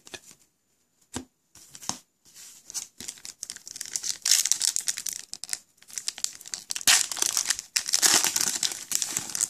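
A few light taps, then a trading-card pack's plastic wrapper crinkling and tearing as it is opened by hand, in bursts that grow loudest over the last couple of seconds.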